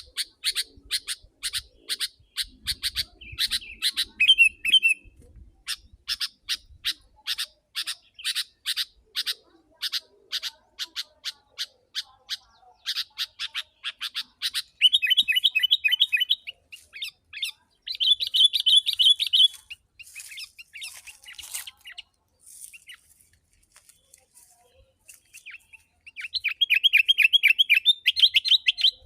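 Sooty-headed bulbul (kutilang) calling loudly: a fast series of sharp repeated notes, about three a second, then bursts of dense chattering song about halfway through and again near the end.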